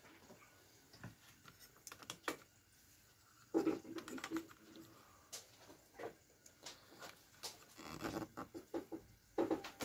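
Light, scattered clicks and taps of handling on a kitchen counter, with a short low squeak about three and a half seconds in and a small cluster of taps near the end.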